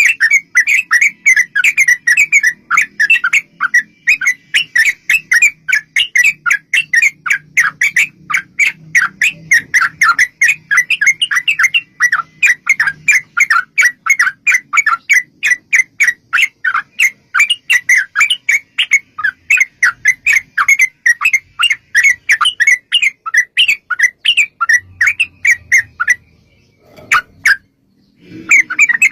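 Yellow-vented bulbul (trucukan) singing a long, rapid run of short chattering notes, several a second. The run breaks off near the end and resumes after a brief pause.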